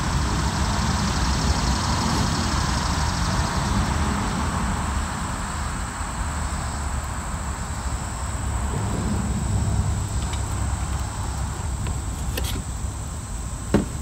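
Outdoor background noise: a low rumble that swells and fades gently, under a steady high insect drone. A couple of sharp clicks near the end.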